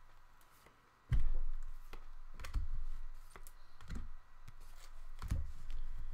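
Scattered clicks and dull knocks, starting about a second in: trading cards and packs being handled and set down on a table.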